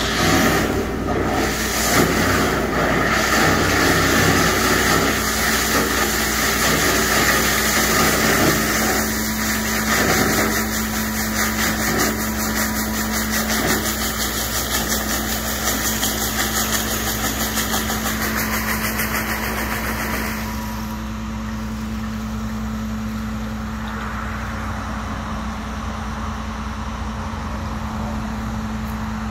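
Septic pump truck's vacuum pump and engine running steadily, with the suction hose noisily drawing sewage and air out of the tank in a rushing hiss. About twenty seconds in the rushing stops, leaving the steady drone of the truck's engine and pump.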